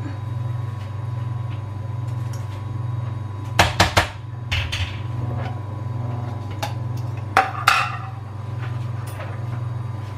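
Kitchen utensils and dishes knocking and clattering: a quick cluster of three sharp knocks about three and a half seconds in, and two more, one with a short ring, near eight seconds. A steady low hum runs underneath.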